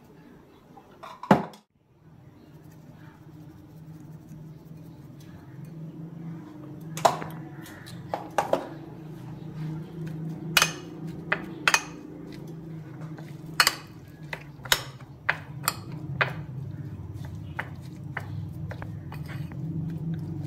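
Metal spoon against an oval glass bowl. There is a single sharp knock about a second in, then from about seven seconds a run of quick sharp clinks and scrapes as chopped vegetables, spices and egg are stirred together, over a steady low hum.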